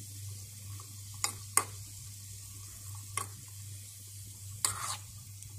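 Cashews and raisins frying in ghee in a small metal kadai, a faint sizzle under a steady low hum, with a spoon scraping and clicking against the pan a few times.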